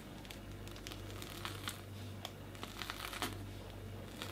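Faint crinkling and soft clicks of a plastic piping bag being squeezed by hand as whipped cream is piped out in rosettes.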